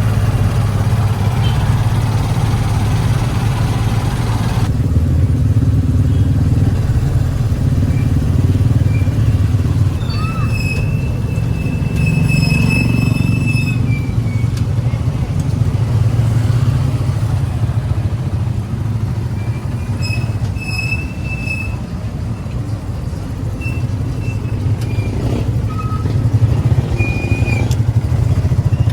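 Motorcycle engine of a Philippine tricycle (motorbike with sidecar) running steadily on the road, with horn honks around ten and twenty seconds in, one held for a few seconds.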